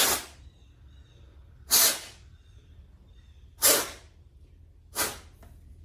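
Four short puffs of air blown through a dirty chainsaw air filter to clear out the dust, spaced one to two seconds apart.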